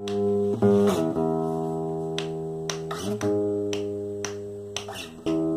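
Acoustic guitar playing a slow introduction: a few chords struck and left to ring and fade, the chord changing about a second in, again near the middle and near the end, with light clicks between.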